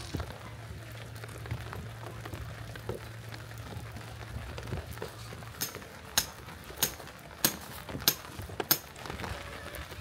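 A low steady hum, then about halfway through a series of about six sharp, evenly spaced knocks over roughly three seconds.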